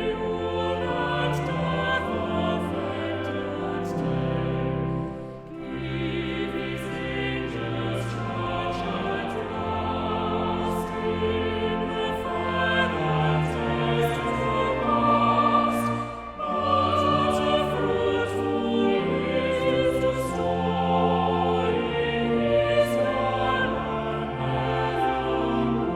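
A choir singing a hymn with instrumental accompaniment, with two short breaks between lines.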